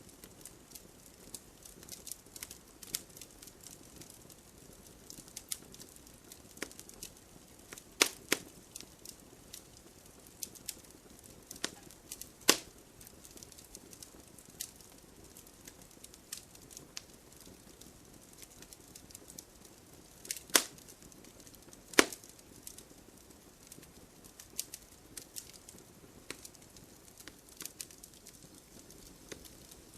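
Wood fire burning in a fireplace: a steady soft hiss under scattered crackles, with four loud pops of the burning logs about 8, 12, 20 and 22 seconds in.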